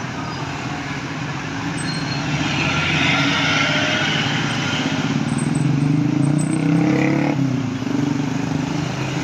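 Large bus driving past, its engine and road noise swelling over a few seconds and then easing off.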